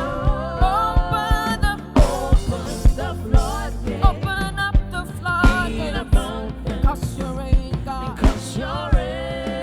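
Live gospel worship music: a sung lead voice with gliding, ornamented notes over a band with a drum kit and a steady bass line.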